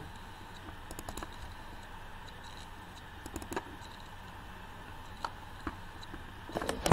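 Faint computer mouse and keyboard clicks, in small scattered clusters a couple of seconds apart, over faint steady background noise.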